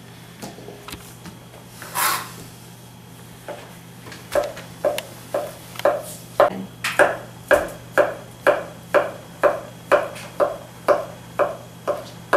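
Kitchen knife slicing through cooked, peeled potatoes and tapping the plastic cutting board with each cut, about two strokes a second from about four seconds in. A single louder knock comes about two seconds in.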